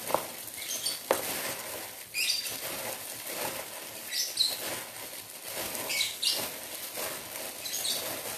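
Thin plastic disposable gloves crinkling and rustling in irregular bursts as gloved hands squeeze and mix cooked rice in a pot, with two light knocks near the start.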